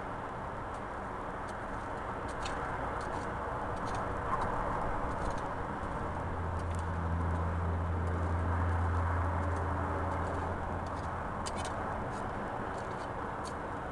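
Backhoe loader's diesel engine working steadily, its low drone swelling in the middle as it takes more load, with a few light ticks.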